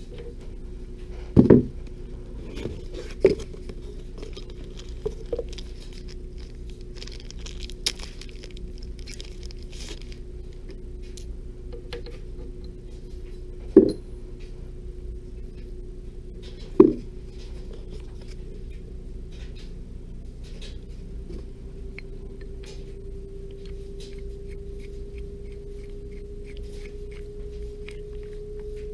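Small metal lathe parts and tools being handled and set down: a few sharp knocks and clinks with lighter clicks between them. A steady hum underneath rises slightly in pitch in the second half.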